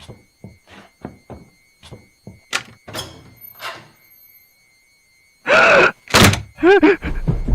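A run of dull thuds, coming quicker and quicker, then a short pause and a sudden loud burst of sound, followed by short rising-and-falling cries from a voice.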